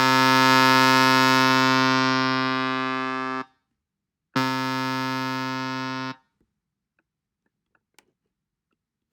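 Synthesizer tone from Ableton's Learning Synths web page, played twice at the same pitch: a loud note held about three and a half seconds that slowly fades, then a softer note for about two seconds, each cut off sharply. The change in loudness between the notes is a change in amplitude.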